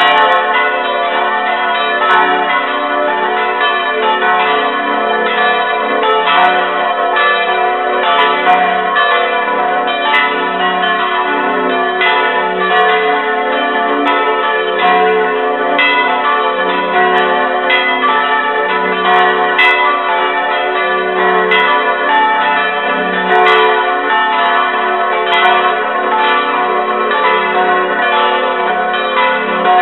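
Swinging bronze church bells ringing together in a full peal, strike notes F sharp, A, B and D. Their strikes overlap steadily, each leaving a long hum of tones sounding under the next.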